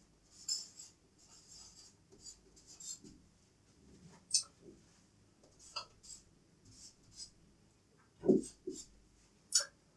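Felt-tip marker writing on a whiteboard: short, scattered pen strokes across the board. A brief low sound stands out a little after eight seconds in.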